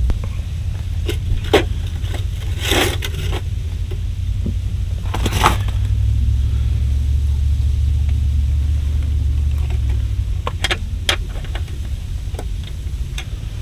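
Scattered clicks, scrapes and rustles of hands untangling fishing line and handling tackle, over a steady low rumble.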